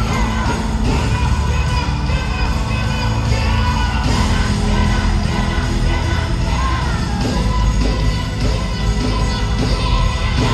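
Live gospel worship music: a band with heavy bass and voices singing.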